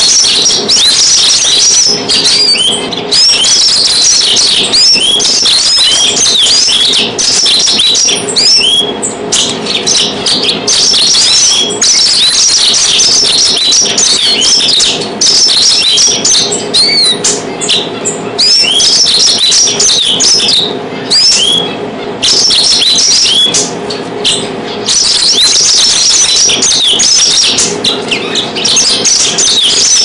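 Yellow-fronted canary (Mozambique canary) singing a fast, twittering song of rapid high chirps and trills in long runs broken by short pauses.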